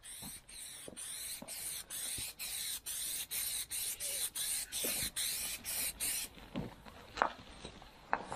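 Rhythmic hissing strokes, about two a second, that stop about six seconds in, followed by a few short knocks.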